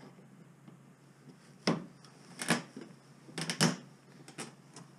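A handful of sharp plastic clicks and knocks as a tool pries at a trim clip on a Toyota Hilux's wheel-arch trim and bumper. The loudest come in a cluster about three and a half seconds in.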